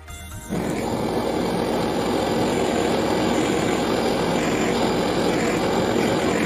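Gas brazing torch flame running with a steady, loud rushing hiss while a copper tube joint is heated and brazed. It cuts in abruptly about half a second in.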